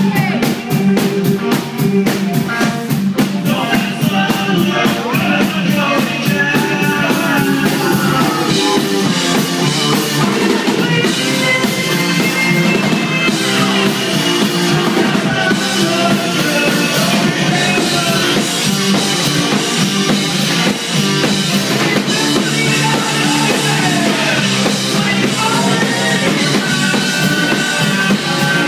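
Live rock band playing: a woman singing into a microphone over electric guitars and a drum kit. A fast, even drum pattern opens it, and the singing comes in a few seconds later.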